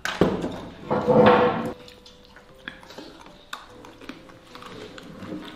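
A short, loud vocal sound about a second in, then scattered light clicks of chopsticks against porcelain rice bowls during eating.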